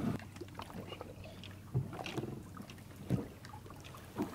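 Water lapping and slapping against the side of a small boat, with three louder slaps spread through the few seconds.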